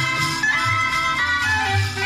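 Instrumental folk music for the Kurpites dance: a melody line moving over a bass that pulses a few times a second.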